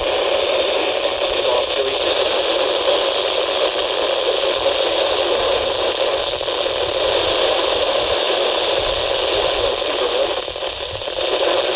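Steady static hiss from a radio receiver on a weak NOAA Weather Radio signal, with a faint broadcast voice at times under the noise. The hiss dips briefly near the end.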